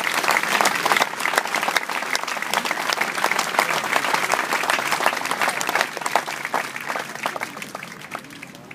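A large audience applauding: many hands clapping in a dense patter that thins out and fades over the last few seconds.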